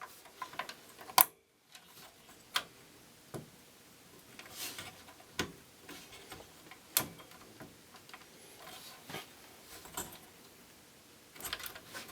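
Plastic push-pins of a stock Intel CPU cooler being pressed into the motherboard: scattered sharp clicks, about half a dozen, amid faint plastic handling noise.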